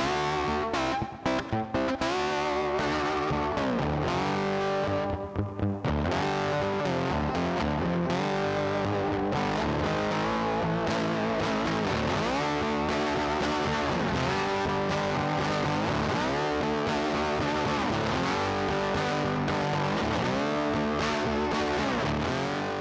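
Background music: distorted electric guitar rock with a steady beat, stopping and starting in short hits over the first few seconds, then running on and fading out at the end.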